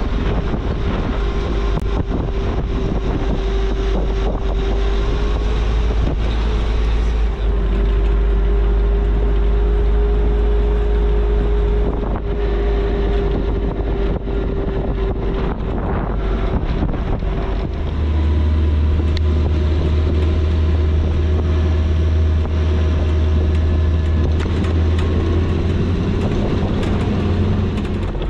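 Willys flat-fender Jeep's four-cylinder engine running steadily under way, with wind buffeting the microphone. About two thirds of the way through, the engine's low note steps up in pitch as the revs rise.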